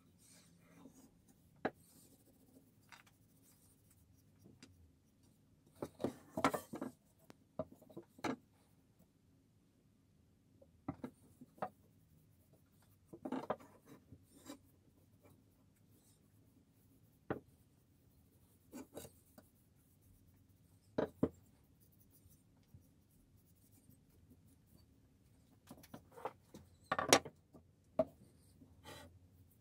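Cloth rubbing linseed oil into a wooden knife handle, with scattered knocks and clatters as the steel billhook is handled on a wooden workbench; the loudest clunk comes near the end as the tool is laid down.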